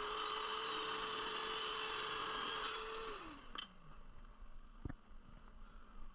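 Woodworking power tool motor running steadily with a whine and hiss for about three seconds, then switched off and winding down in pitch. Two light knocks follow.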